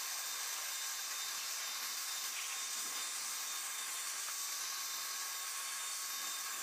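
Steady high hiss with faint whining tones from the parked C-5 Galaxy's machinery as its hydraulic nose cargo ramp unfolds and lowers.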